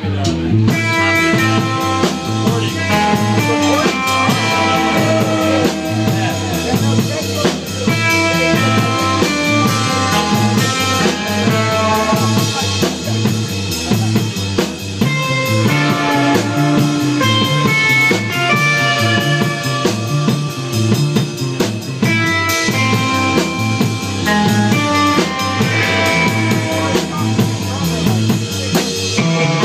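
A live band playing rock music: a drum kit keeps a steady beat under a guitar melody.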